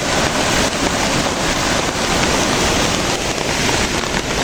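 Muddy floodwater rushing and churning out of a farm pond's outlet into a gully: a loud, steady rush, from a pond overflowing after a night of heavy rain. Rain falls over it.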